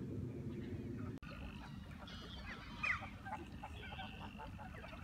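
Waterfowl calling on a lake, many short overlapping calls, with one louder call just before three seconds in. For the first second there is only a low rumble, which cuts off suddenly.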